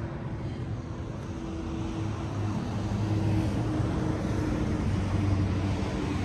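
Lamborghini Huracán's naturally aspirated V10 engine idling, a steady low hum that grows louder from about two seconds in.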